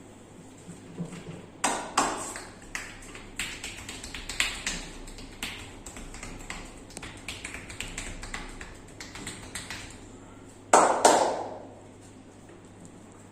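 Hands striking skin during a massage: a run of irregular light taps and slaps, with two loud slaps close together about eleven seconds in.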